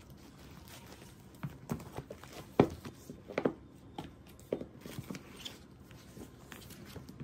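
Paperback books being handled and set down on a glass tabletop: a scatter of soft knocks and cover rustles, the loudest knock about two and a half seconds in.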